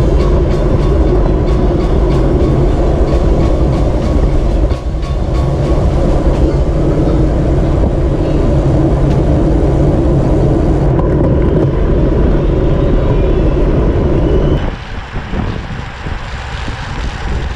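Wind rushing over the microphone of a bicycle-mounted camera at race speed, with a heavy low rumble and a run of sharp ticks in the first few seconds. The rush drops off sharply about three seconds before the end.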